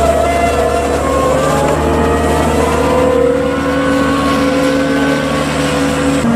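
Ahlmann AZ150 wheel loader's diesel engine running as the loader pushes chopped corn silage with its bucket, the revs climbing about two seconds in and then holding steady.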